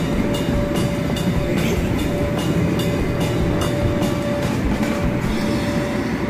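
Steady drone of an inflatable bounce house's air blower, with a regular clicking about two to three times a second.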